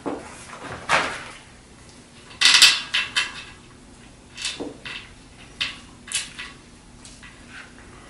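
Bicycle tire being pulled off a wheel rim by hand: scattered scrapes and clicks of the tire bead against the rim, the loudest a crackly rub about two and a half seconds in.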